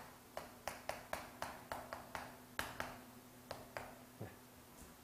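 Chalk tapping on a blackboard as characters are written: a run of faint, sharp clicks, about three a second, that thins out near the end.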